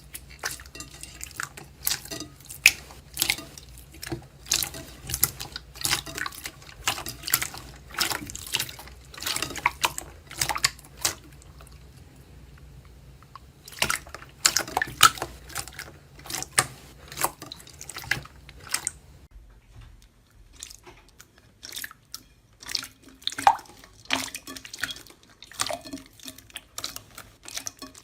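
Slime being squeezed and poked by hand, making irregular wet clicks and pops, several a second, with a short pause about halfway through.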